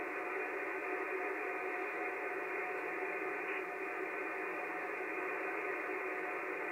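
Steady hiss and static from an amateur radio receiver's speaker on the 12 m band, muffled with no high end, with a few faint steady tones in it and no voice coming through.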